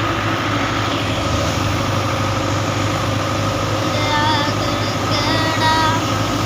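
A farm engine runs steadily at a constant speed. Faint voices are heard over it from about four to six seconds in.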